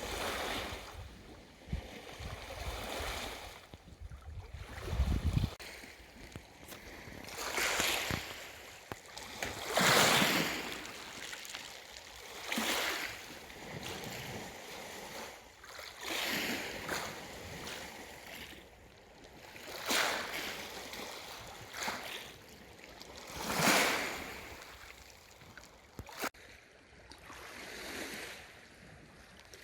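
Small waves washing onto a shoreline, each wave a swell of splashing that rises and falls every two to four seconds. There is a low rumble during the first few seconds.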